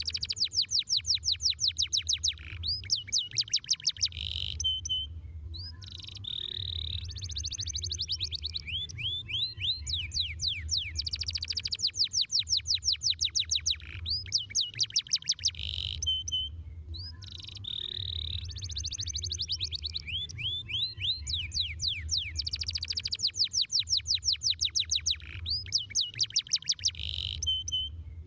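Domestic canary singing a long rolling song: very fast trills of high notes, many to the second, in phrases of a few seconds with short breaks between them, some phrases made of notes that sweep downward.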